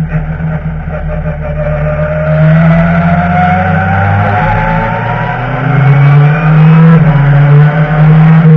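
BMW touring race car engine heard from inside the cockpit under acceleration, its pitch rising steadily, dropping sharply about five seconds in as it shifts up a gear, then climbing again.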